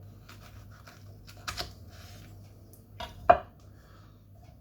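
Knife clicking and tapping on a hard surface as a Carolina Reaper pod is cut open: a few short clicks, the sharpest about three seconds in.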